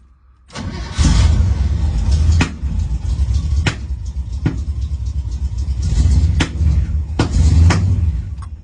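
1969 Pontiac Firebird engine running rough with a misfire: a loud uneven rumble broken by sharp pops at irregular intervals, blamed on a spark plug issue. It cuts out near the end.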